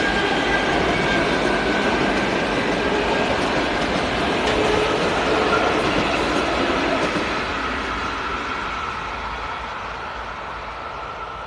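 ED4M DC electric multiple unit running past at speed: steady wheel-on-rail noise with a faint high whine, fading gradually over the last few seconds as the train moves away.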